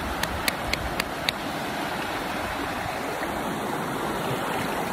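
Shallow, fast river rushing steadily over rocky riffles, a full, even sound of running water. A quick run of light clicks comes in the first second or so.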